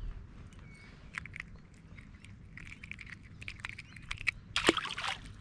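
A hooked tailor thrashing at the water's surface: a run of small, sharp splashes and flicks, thickening towards the end, with one bigger splash near the end.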